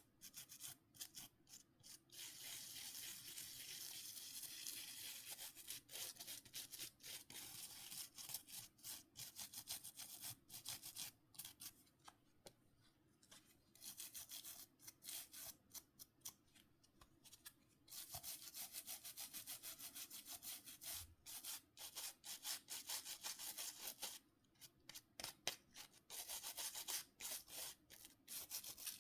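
Faint, rapid back-and-forth rubbing strokes on the parts of a Nokia C5-00 mobile phone being scrubbed clean, in spells with short pauses.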